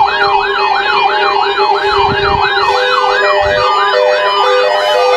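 Electronic warning-system alarm sounding for a required weekly test. A siren-like warble sweeps up and down about two and a half times a second over a steady lower tone and an alternating two-note beep.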